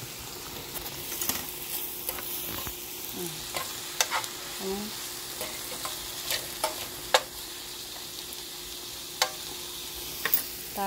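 Vegetables and chicken sizzling in a frying pan as they are stirred with a metal fork, with sharp irregular clicks of the fork striking the pan.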